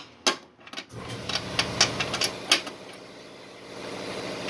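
Sharp metallic clicks and clinks of a wrench working the snowblower's auger bolts loose. A steady machine hum joins about a second in and keeps running under the clicks.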